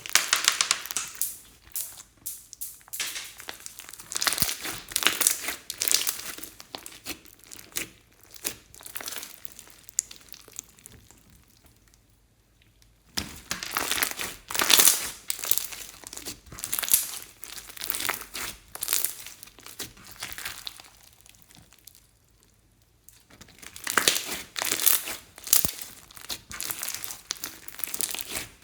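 Slime being squeezed, stretched and kneaded by hand, a dense crackling of small clicks and pops in spells, with short pauses about twelve and twenty-two seconds in.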